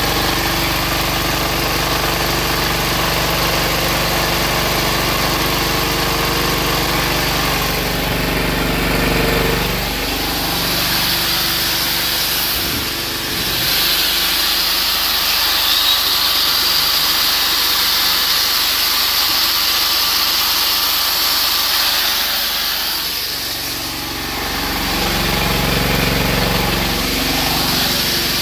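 Small diesel engine converted to run on woodgas, running steadily and driving a belt. For about twelve seconds midway its low, even note fades behind a broader hiss, then comes back.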